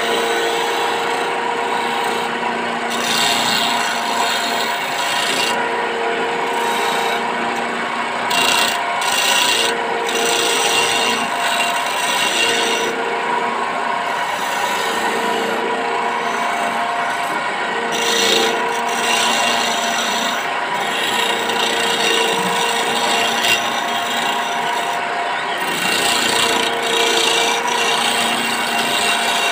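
Wood lathe running while a small hand chisel scrapes the spinning teak workpiece: a steady motor hum under an uneven, rasping scrape that swells and fades as the tool bites.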